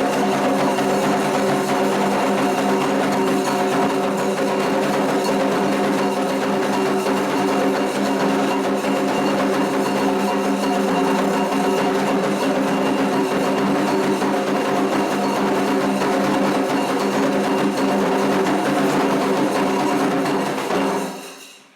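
Candomblé ritual music: drums and a clacking percussion beat over steady held tones, which fades out about a second before the end.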